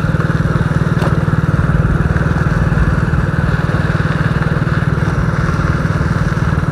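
Motorcycle engine running steadily while riding along a dirt track, a fast, even pulsing exhaust note with no change in speed.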